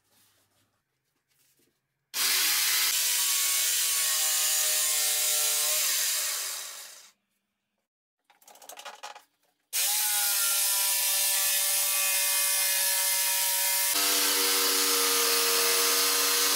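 Corded jigsaw with its blade tilted to 45 degrees, cutting into the edge of a thick solid-wood circle. It starts after about two seconds, runs for about four seconds and winds down. After a short pause with a few small knocks it starts again and runs steadily, its pitch dropping a little near the end.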